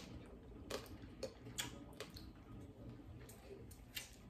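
Faint, scattered clicks and soft smacks of people eating a seafood boil by hand: shrimp shells being peeled and food being chewed, several separate clicks spread through the few seconds.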